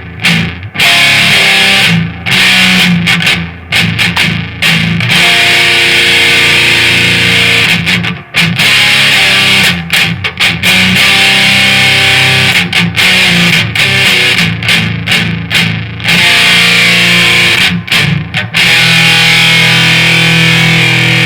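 Distorted electric guitar played through a Marshall DSL 40C amp, high-gain rock chords and riffs. In the short pauses between phrases the sound cuts off suddenly to silence, with no hiss or hum left, as the noise gate pedal shuts.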